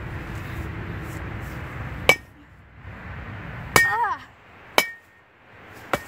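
A metal baseball bat striking a pumpkin, four sharp hits starting about two seconds in, each with a brief metallic ring.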